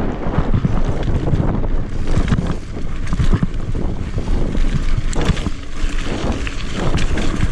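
Mountain bike ridden over a rough trail: a steady rumble of wind buffeting the microphone, with frequent knocks and clatters from the tyres and frame over bumps.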